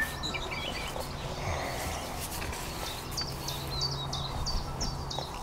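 Small songbirds calling: a few high warbled notes at first, then a run of short repeated high chirps, about three a second, from about three seconds in. A faint steady low hum lies underneath.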